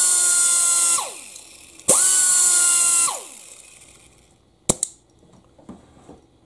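Central Pneumatic 1/4" angle air die grinder running free with a steady high whine and loud hissing air exhaust; the trigger is let go about a second in and the whine falls as it spins down, then it runs again for about a second and spins down again. About 4.7 s in, a single sharp click as the air hose's quick coupler is pulled off the tool's fitting.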